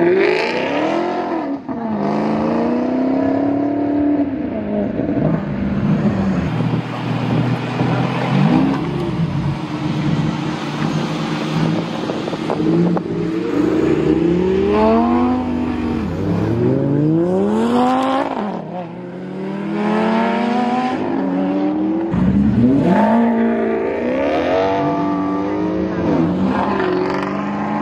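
Sports car engines revving and accelerating hard, the pitch climbing in repeated rising pulls through the gears and dropping back between them. A Maserati GranTurismo's V8 pulls away near the start and again near the end.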